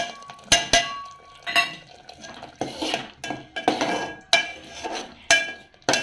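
Clinks of a steel bowl against an aluminium pot as spice powders are tipped in, then a spatula stirring and scraping the frying masala paste around the pot in repeated strokes.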